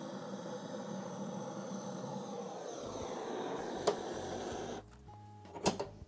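Butane blowtorch burning with a steady hiss as it lights a wood-stove fire. It cuts off about five seconds in, with a sharp click just before and a knock near the end.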